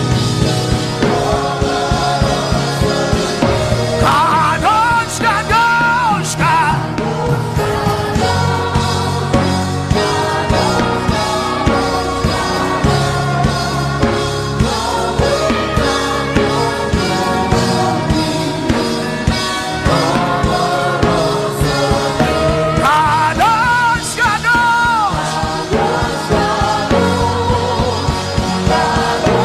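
Gospel worship music with singing: a sustained band accompaniment with a steady bass under a sung melody, and a high melodic line that rises, holds and falls twice.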